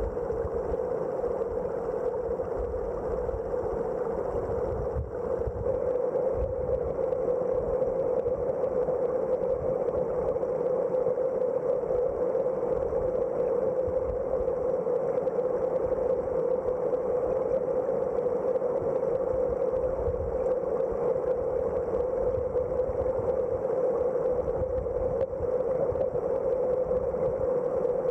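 Steady, muffled rushing of river current recorded underwater, with an uneven low rumble beneath it.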